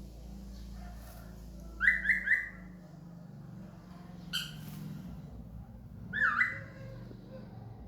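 A bird whistling short clear notes: a quick run of three about two seconds in, a single note around four seconds, and a swooping pair near the end, over a low background hum.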